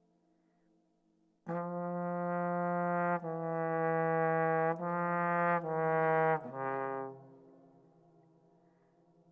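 Solo trombone playing a slow phrase. It comes in about a second and a half in with a long held note, then moves through three shorter held notes and drops to a brief lower note. The sound then fades into a lingering ring.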